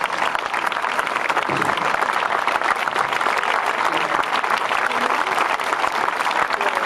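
A crowd applauding: steady clapping from many hands.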